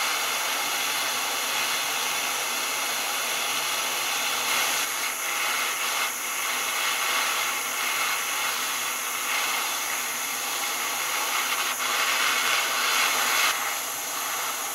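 Propane torch flame hissing steadily as it heats a steel screwdriver tip to red heat for hardening; the hiss drops slightly near the end.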